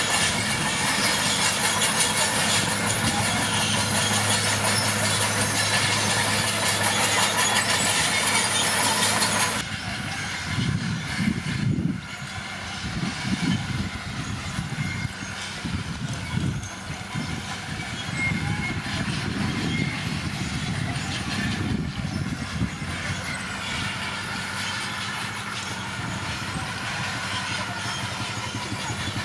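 Komatsu D41P crawler dozer's diesel engine running with its steel tracks clanking. About ten seconds in, the sound drops abruptly from a loud, steady engine note to a quieter, uneven low rumble.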